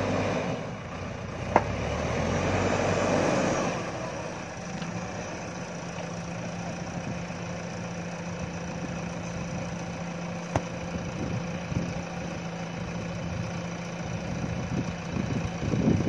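JCB backhoe loader's diesel engine working, louder for the first four seconds or so as the loaded front bucket is driven up and raised, then settling into a steady lower hum. Two single sharp clicks, one early and one past the middle.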